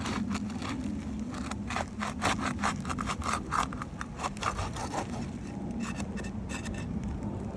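Repeated short scraping and rubbing strokes, as of asphalt roof shingles being worked loose and handled during a shingle repair, over a steady low rumble.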